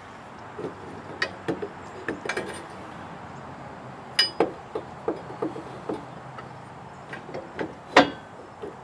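Irregular metallic clinks and knocks of metal parts and tools being handled, a dozen or more sharp hits, some with a short ring. The loudest comes near the end.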